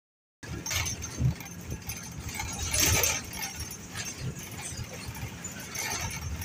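Ride noise heard from inside a moving vehicle: rumbling road noise with irregular rattling and jangling. The sound cuts out completely for a moment at the start.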